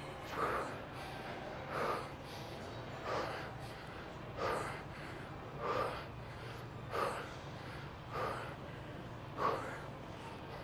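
A man's short, forceful breaths, one with each rep of a dumbbell front raise, eight in all at about one every 1.3 seconds, over a steady low hum.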